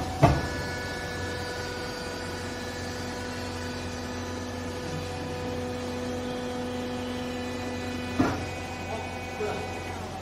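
Hydraulic clothes baler running with a steady motor and pump hum. A sharp metallic clank comes about a quarter second in, and another about eight seconds in, each ringing briefly.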